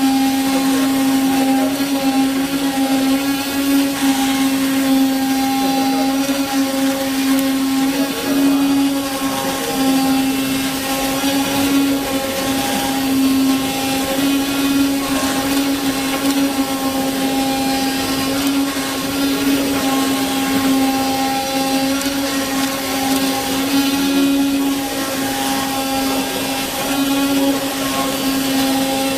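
RZCUT-250 CNC knife cutting machine running, a steady motor hum with one strong low tone and a few fainter higher ones over a continuous rushing hiss.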